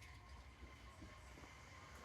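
Near silence: faint station platform ambience, a steady low hum with a thin high tone running through it.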